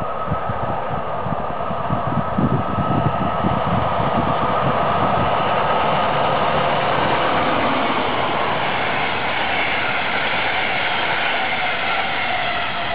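DB Class 111 electric locomotive hauling double-deck regional coaches past at speed: a steady rumble of wheels on rail that swells as the locomotive comes close, then the rolling of the coaches, with a whine that drops in pitch near the end as it goes by.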